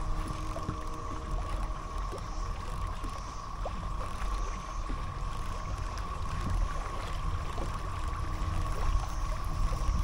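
Kayak moving over the water, with water splashing along the hull and wind rumbling on the microphone. Behind it runs the unbroken, steady drone of a cicada chorus.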